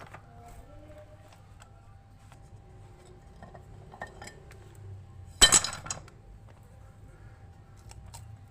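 Metal tools and engine parts clinking and tapping during a motorcycle engine teardown, with one loud metallic clank about five and a half seconds in.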